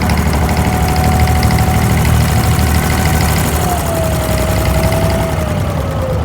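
An abra's inboard diesel engine running steadily, a loud low drone with a fast, even clatter. A thin whine rides over it and slides slowly lower in pitch in the second half.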